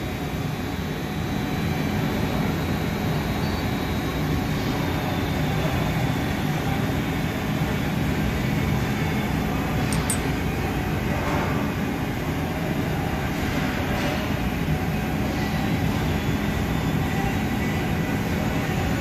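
Steady rumble and low hum of running shop machinery, with a sharp click about halfway through and a couple of fainter clicks after it.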